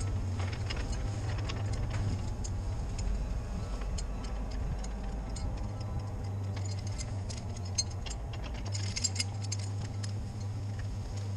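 Cat 304CR mini excavator's diesel engine running steadily while it drags a chained felled tree, with scattered sharp clicks and rattles throughout, thickest about two-thirds of the way in.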